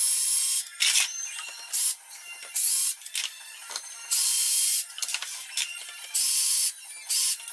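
Cordless drill driver running in about seven short bursts of whirring, each a fraction of a second long, as screws are backed out of a wooden mould box.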